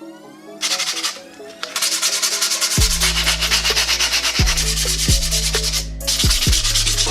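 Steady rough rubbing and scraping with a sanding character, breaking off briefly just before six seconds in. Under it runs a hip-hop beat whose deep bass notes slide downward, coming in about three seconds in.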